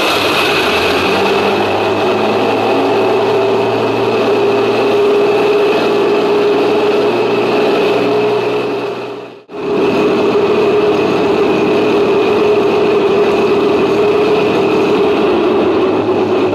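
Tiger tank engine sound running steadily with an even, unchanging note. It cuts out abruptly about halfway through, then resumes at the same level.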